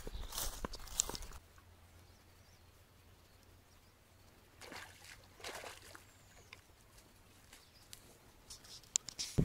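Quiet outdoor riverside ambience. For about the first second and a half there is wind rumble on the microphone with a few sharp clicks; then it drops to a near-still background with a couple of faint swells.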